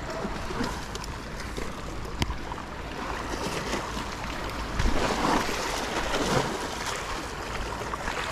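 Water sloshing and wind noise on the microphone, with a few light knocks and a louder rushing stretch about five seconds in.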